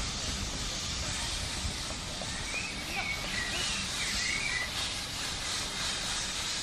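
A small bird chirps a few short calls in the middle, over a steady outdoor background of low rumble and hiss.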